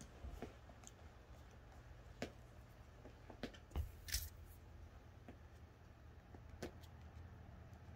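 Quiet room with faint, scattered taps and scratches of kittens pawing at a wand toy on carpet. The loudest is a short scratchy rustle about four seconds in.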